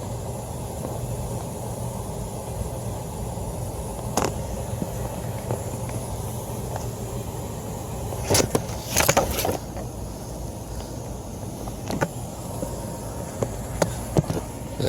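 Steady low machinery hum and rumble with a steady low tone, broken by a few sharp clicks and knocks, the loudest cluster about eight to nine and a half seconds in.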